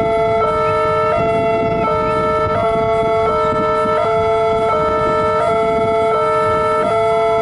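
Railway level-crossing warning alarm sounding a steady electronic two-tone signal, switching pitch about every 0.7 s while the barrier is down, with waiting motorcycle engines rumbling underneath.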